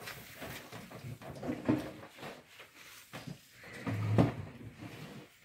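People eating tortilla chips: irregular crunches and crackles of chips being bitten and picked off a foil-lined tray, the sharpest about one and a half and four seconds in.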